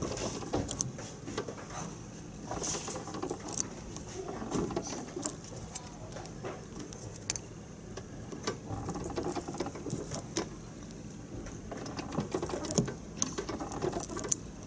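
Irregular small clicks and scrapes of a metal key working chewing gum into the keyway of a clear practice cylinder lock. The gum is being packed in to push the pin stacks up.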